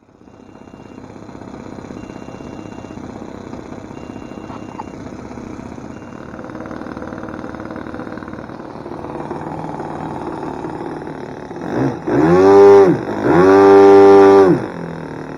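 Saito four-stroke model airplane engine idling steadily. About twelve seconds in it is blipped, then run up to high throttle twice, the second burst held for over a second, each time dropping back to idle.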